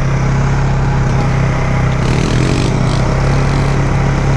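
Polaris Sportsman 570 ATV's single-cylinder engine running at a steady pace while riding, a constant low drone.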